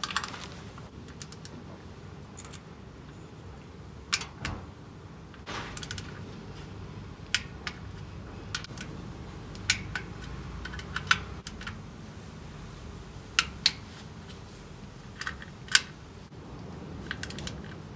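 Sharp metal clicks and clinks, about a dozen, irregularly spaced, of a socket and wrench being fitted to and worked on the nuts of an air-cooled VW Beetle engine's oil strainer cover, tightened to 7 N·m.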